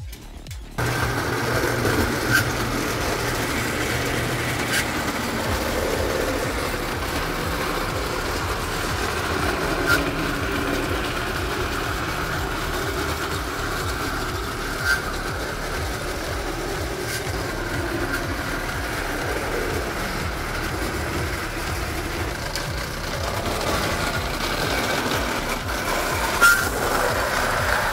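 Lionel No. 156 pre-war O gauge tinplate locomotive running on three-rail track with its passenger cars: a steady whirr of motor and gears over the rumble of wheels on the metal rails. A few sharp clicks a few seconds apart stand out.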